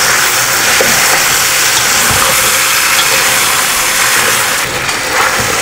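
Marinated chicken drumsticks frying in hot olive oil in a kadai: a steady, loud sizzle, with a few light scrapes as a spatula turns the pieces.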